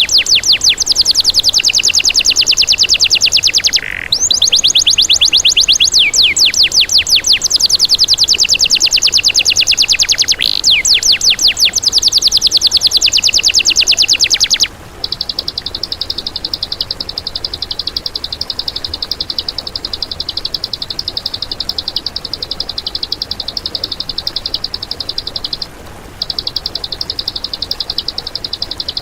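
Recorded songbird song from a compilation. First comes a loud, very rapid series of sweeping high notes with a short break about 4 s in. Around halfway it switches abruptly to a steady, fast, buzzy trill at a narrower high pitch, which stops briefly near the end.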